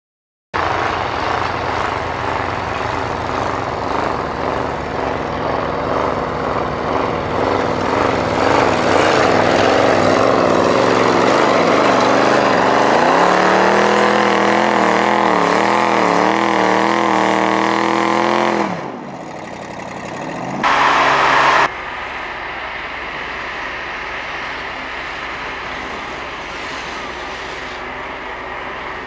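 Off-road 4x4 truck engine revving hard under load as it ploughs up a snowy slope, its pitch wavering up and down and climbing to a loud, strained peak about two-thirds in before it cuts off. A brief loud blast of about a second follows, then a steadier, quieter engine noise.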